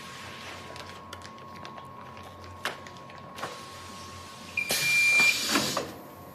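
Conveyor metal detector sounding a short steady alarm beep about four and a half seconds in, under a loud rush of noise lasting about a second: the detector flagging the pouch of oil that has a staple in it. Before it, only a faint steady tone and two light clicks.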